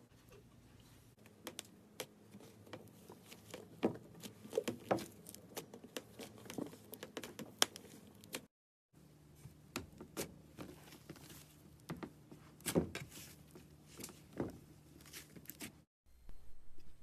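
Butter slime being squished and worked by hand, giving many small irregular clicks and crackles. The sound breaks off twice briefly, a little past halfway and near the end.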